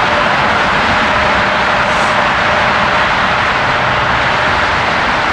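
Steady, loud rushing roar of jet airliner engines mixed with highway traffic, with a faint steady whine underneath that fades out about halfway through.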